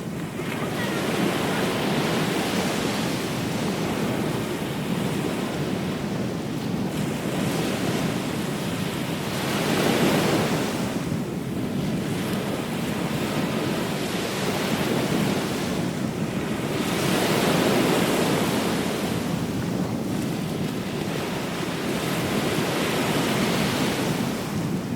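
Ocean waves breaking and washing on a beach, swelling and easing every several seconds, with wind rumbling on the microphone.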